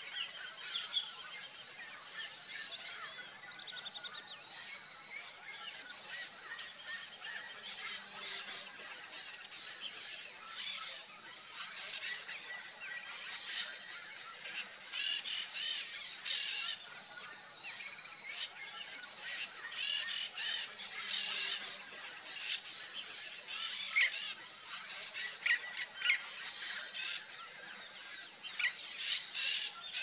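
Natural ambience of a steady high-pitched insect trill with scattered short chirps and calls of small birds, which grow busier from about halfway through.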